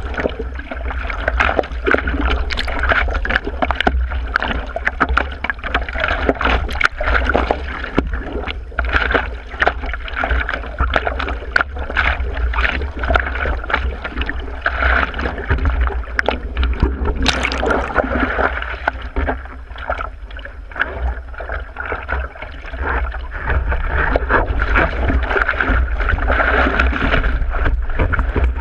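Seawater splashing and sloshing around a surfboard as a surfer paddles prone, arm strokes slapping the water, over a steady low rumble. It grows louder in the last few seconds as a breaking wave surges around the board.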